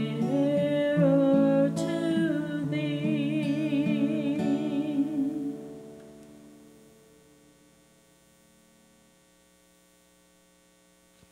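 A woman singing to strummed acoustic guitar, holding the closing notes with a wavering vibrato; the song ends about halfway through and the last chord fades away, leaving a faint steady mains hum.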